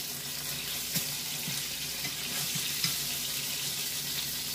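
Marinated salmon fillet sizzling steadily in hot avocado oil in a nonstick frying pan, with a few light clicks of a spatula against the pan as the fish is worked loose to be flipped.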